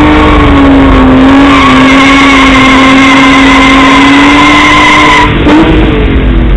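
Car doing a burnout on the drag strip: the engine is held at high revs while the rear tyres spin in a cloud of smoke with a skidding squeal, then the revs drop away about five seconds in.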